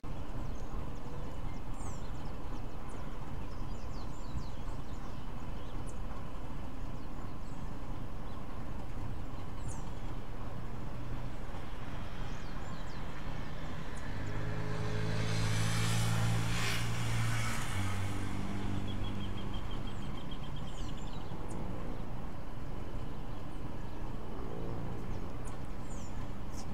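Outdoor background noise with an engine swelling and fading around the middle, as a motor vehicle passes. Faint short high chirps come and go throughout.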